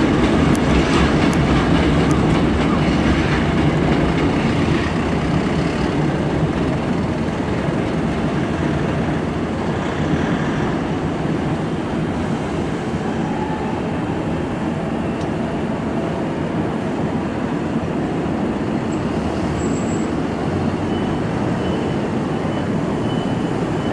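Hankyu electric commuter trains running on the tracks into Osaka-umeda, a steady rumble of wheels on rail that grows gradually quieter over the first half as the trains move off.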